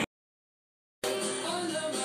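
Dead silence for about a second at an edit, then background music starts suddenly.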